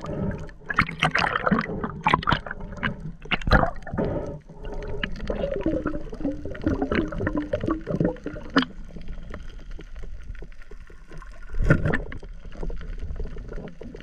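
Underwater sound around a spearfishing diver: gurgling bubbles with many short clicks and knocks, and one louder thump a couple of seconds before the end.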